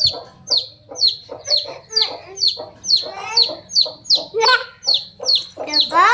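A chick peeping loudly and steadily, about two high peeps a second, each sliding quickly down in pitch, with fainter lower chicken calls in between.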